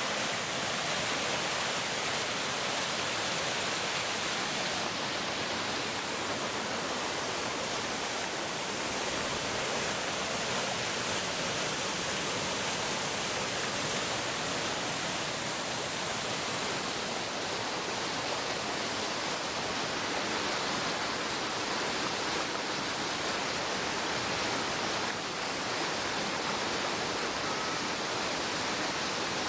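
Waterfall rushing steadily, a dense even hiss with little low rumble.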